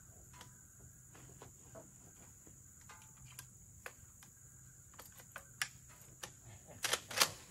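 Steady high buzz of insects, with scattered light clicks and knocks from a scoped hunting rifle being handled at a pickup's tailgate, and two louder sharp knocks close together near the end.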